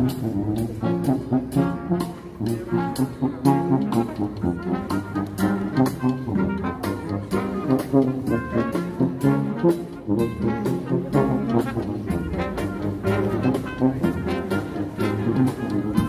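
Brass band music with a steady beat.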